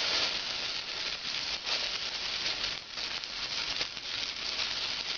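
Chopped carrots, celery and onion sizzling steadily in a hot saucepan, with fine crackles, as tomato sauce is scraped in from a bowl with a silicone spatula.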